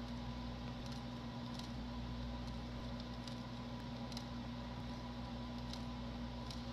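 Faint, soft clicks about once a second from a computer mouse scroll wheel as a web page is scrolled, over a steady low electrical hum.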